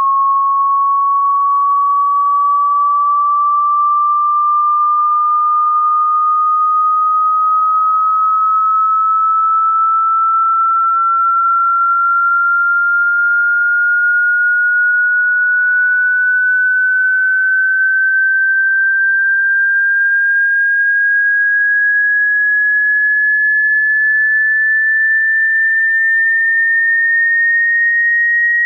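A pure sine test tone gliding slowly and evenly upward in pitch at constant loudness, rising by nearly an octave: a frequency sweep for a hearing test.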